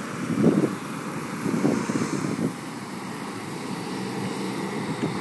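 Distant steady jet noise from a Boeing 737-800's CFM56 engines as the airliner climbs away after takeoff, with brief louder rushes about half a second in and again around two seconds in.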